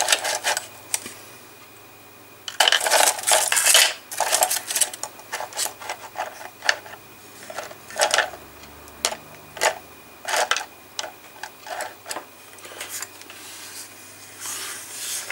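Hobby paint pots and brushes being shifted about and rummaged through on a desk while searching for a brush, clattering and clicking. A dense flurry of clatter comes a few seconds in, then scattered single clicks and knocks.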